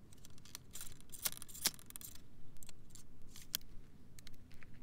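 Steel ramrod of a Lorenz rifle-musket scraping and clicking against the muzzle and its pipes while the rifle is loaded: a run of short metallic scrapes and clicks, the sharpest about a second and a half in.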